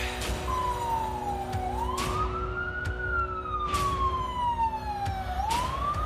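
Fire engine siren wailing, its pitch rising and falling slowly through one full cycle of about four seconds and starting to rise again near the end.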